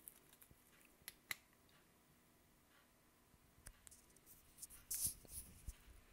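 Near silence broken by faint sharp clicks: two about a second in, then a short run of crackles and clicks around four to six seconds in, loudest near five seconds.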